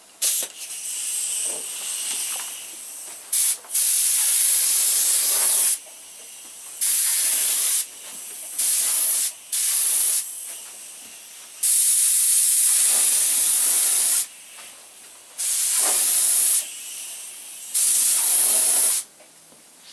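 A gravity-feed paint spray gun on compressed air spraying a coat of paint. It hisses in about eight sharp on-off bursts of one to two and a half seconds, one for each pass, with a fainter hiss between them.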